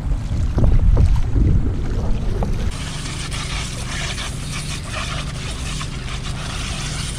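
Wind buffeting the microphone over water sounds around a kayak on calm sea. About two and a half seconds in it cuts to a steady splashing hiss of water poured from a jerrycan over fishing gear.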